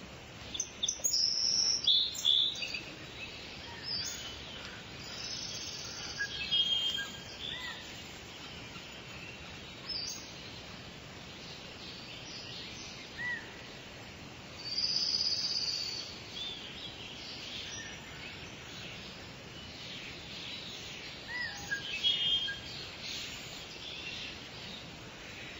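Several birds chirping and calling in short, scattered phrases over a steady background hiss.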